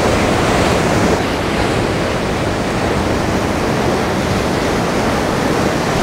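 Rough sea surf breaking and washing over a rocky shore: a steady, dense rush of churning water.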